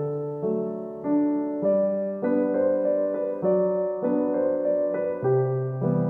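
Background piano music, with a new note or chord struck every half second to a second and fading before the next.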